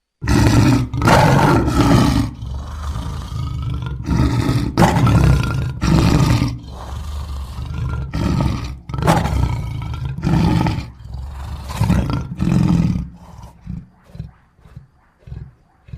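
Lion roaring: a bout of several loud, drawn-out roars that trails off into a series of shorter, fainter grunts near the end.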